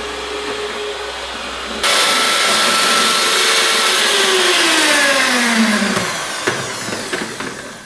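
Electric stand mixer running, beating waffle batter with a steady motor whine. About four seconds in it is switched off and the motor winds down in a falling whine, followed by a few clicks as the mixer head is handled.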